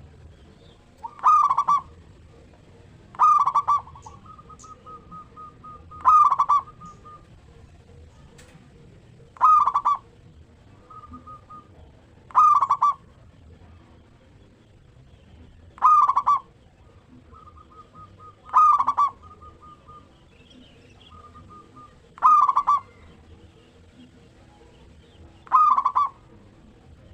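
Zebra dove (perkutut) cooing: a loud, short coo phrase about every three seconds, nine in all. Between some phrases come softer, quick runs of short notes.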